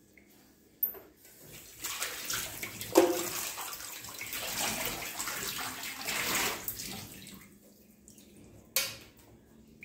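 Kitchen tap running onto a ceramic plate being rinsed over a stainless steel sink, the water spattering for about five seconds and then stopping. A sharp knock sounds about three seconds in, the loudest moment, and another near the end.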